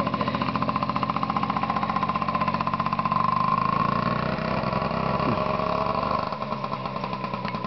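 Small minibike engine running with a rapid, even beat as the bike rides off, growing a little quieter about six seconds in as it moves away.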